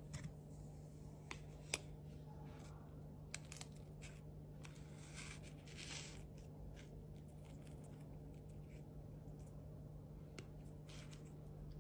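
Metal fork scraping and clicking against a round cracker and a stone countertop while spreading soft roasted garlic: a few sharp clicks near the start, then soft scrapes, over a steady low hum.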